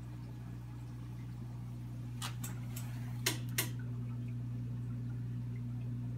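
Steady low hum of aquarium equipment, an air pump or filter running, with a quick cluster of about five sharp clicks near the middle, two of them louder.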